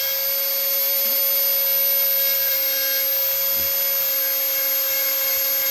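Dremel rotary tool running steadily with a constant whine, its burr grinding into soft pine wood.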